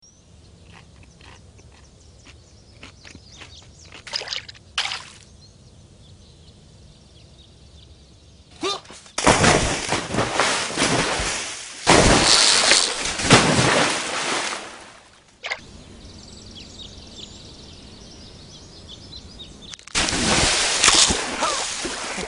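Water sound effects: faint ticks and two quick whooshes, then loud bursts of splashing and rushing water that break off abruptly about fifteen seconds in and return near the end.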